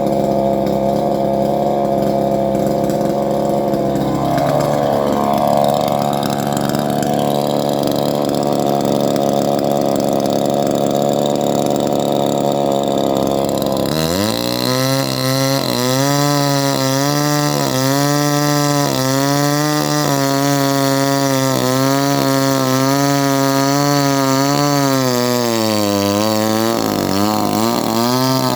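Chainsaw engine running continuously. About halfway through its sound changes abruptly, and its pitch then wavers up and down in a steady rhythm.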